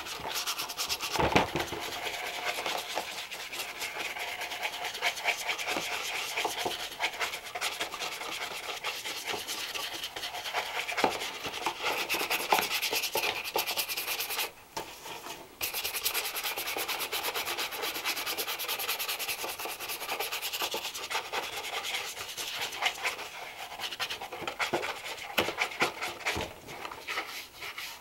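Shoe brush scrubbed quickly back and forth over a leather shoe upper during polishing: a dense, scratchy rubbing made of rapid short strokes, stopping briefly about halfway through.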